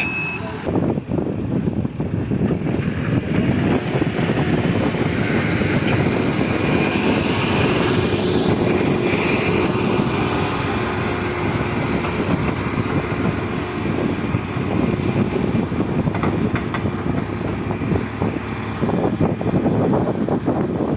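Heavy construction machinery running: a loud, steady engine noise that never stops.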